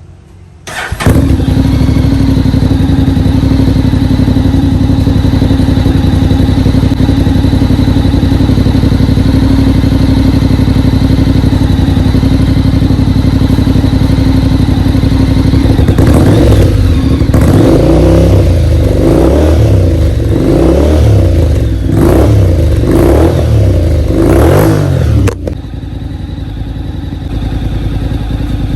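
Honda X-ADV 750 parallel-twin engine through a MIVV slip-on exhaust. About a second in it comes in suddenly and loud, runs steadily, then is blipped through a series of quick revs before dropping back to a quieter idle near the end.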